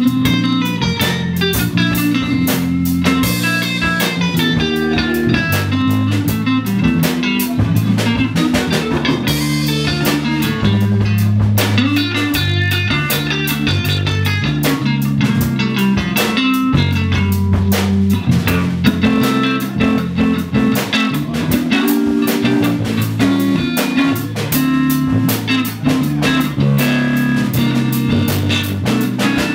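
Live blues band playing: electric guitar over electric bass guitar and a drum kit.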